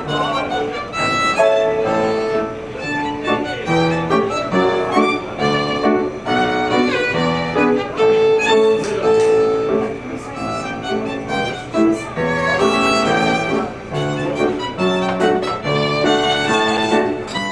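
Classical music, with a violin carrying the melody over sustained accompanying notes.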